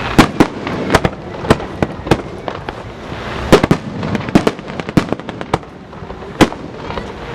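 Fireworks going off: an irregular string of sharp bangs and pops, a couple of them louder than the rest, over a steady crackling hiss.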